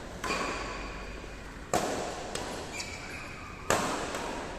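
Badminton racket strings hitting a shuttlecock in a rally: three sharp strikes, roughly two seconds apart, each with a short echo.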